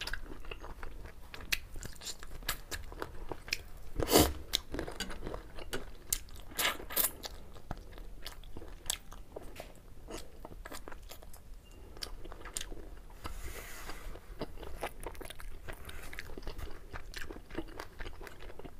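Close-miked mukbang eating sounds: a person chewing chicken thukpa noodles eaten by hand, with wet mouth clicks and smacks and one louder mouth sound about four seconds in.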